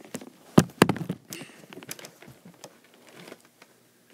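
Handling noise: two sharp thumps a little after half a second in, then scattered light knocks and rustles as the camera is moved and set down and plush toys are handled.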